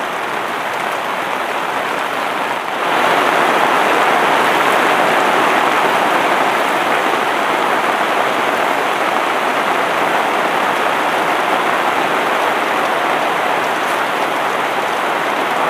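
Heavy rain falling steadily on a camp tarp and the surrounding forest, with a rain-swollen river rushing beneath it. The hiss gets louder about three seconds in.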